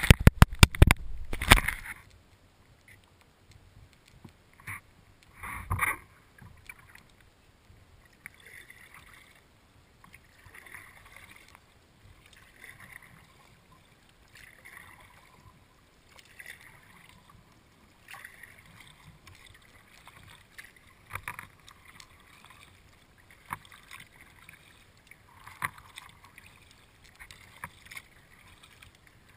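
Kayak paddle strokes in calm water, a soft swish and splash about every two seconds. A burst of loud knocks comes in the first two seconds, and another thump about six seconds in.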